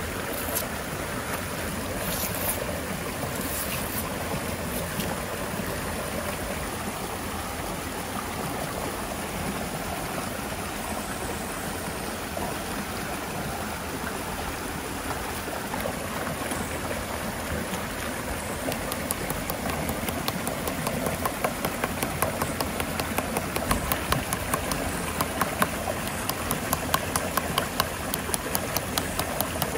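Steady rush of a flowing river, with a run of short sharp ticks, about two a second, starting about two-thirds of the way in.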